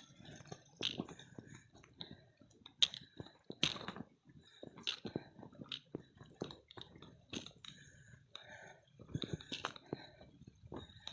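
Hiker's footsteps crunching on a rocky dirt trail: a string of sharp, unevenly spaced steps, roughly one a second.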